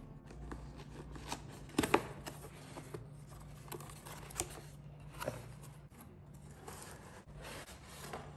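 Cardboard packaging of a fry pan being opened and handled: flaps and inserts scraping and rustling in irregular short strokes, with a sharp double knock about two seconds in, over a low steady hum.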